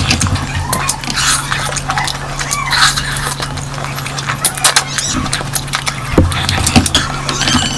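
A person eating curry close to the microphone: rapid wet chewing, lip smacks and short slurps, over a steady low hum.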